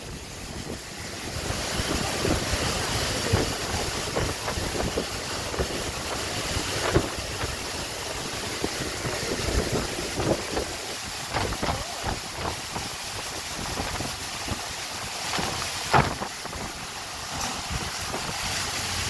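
Storm wind gusting to about 75 km/h with heavy wind-driven rain, a dense gusty hiss with the wind buffeting the microphone. It picks up about a second and a half in, and there are a few sharp knocks, the loudest near the end.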